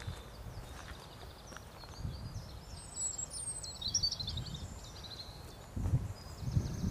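Small birds chirping and trilling in high, thin notes, busiest about halfway through, over a low outdoor hiss. Low rumbling bumps, from wind or handling on the microphone, come and go and grow stronger near the end.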